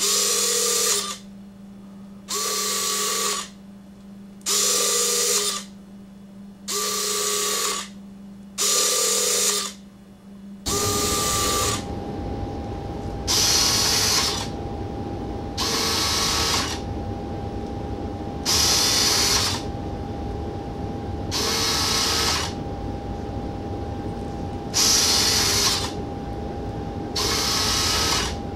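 The Rotormast V-22 model's factory retractable landing gear cycling up and down: about a dozen short whirring runs of roughly a second each, with pauses of one to two seconds between them. A steady hum comes in about eleven seconds in and continues under the later runs.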